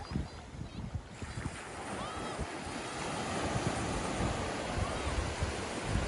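Small ocean waves breaking and washing over the shallows at the shoreline. The surf is a steady rush that is softer for about the first second, then builds and holds.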